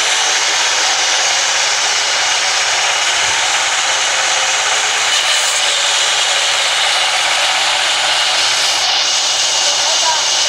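Sawmill band saw running and cutting lengthwise through a large log, a loud, steady noise of blade and motor with no let-up.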